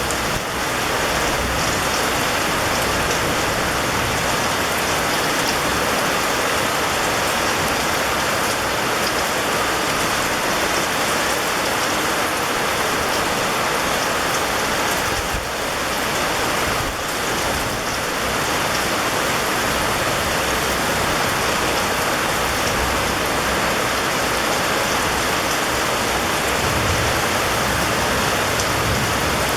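Steady rain: a dense, even hiss with fine patter of drops, dipping briefly twice about halfway through.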